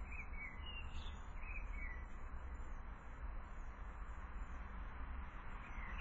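A small garden bird chirping, a few short high notes in the first two seconds and again near the end, over a steady background hiss and low hum.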